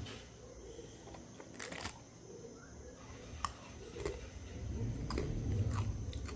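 Scattered light clicks and handling noises, with a low rumble building over the last two seconds.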